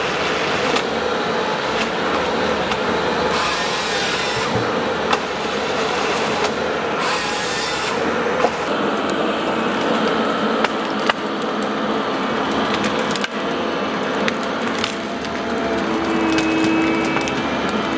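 Vimek 404 T8 compact forestry harvester at work, its 55 kW CAT diesel running steadily under the cracking and sawing of wood at the harvester head. There are short bursts of hiss and a few sharp clicks.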